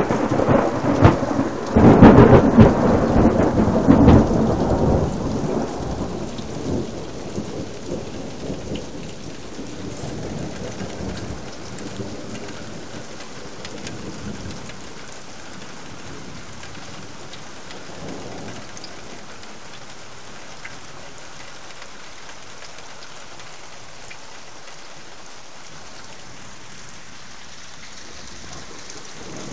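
Thunder rolling: a loud crackling, rumbling peal in the first few seconds that dies away slowly into a long low rumble. Underneath, a steady hiss of rain.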